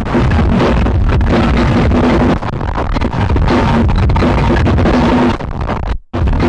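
Lo-fi music from an archival tape recording: a dense, noisy wash over recurring held low notes, cutting out for an instant near the end.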